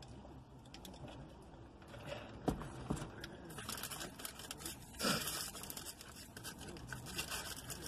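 Food wrapper being handled, crinkled and torn, with scattered rustles and sharp clicks, and a denser burst of crackling about four to five seconds in.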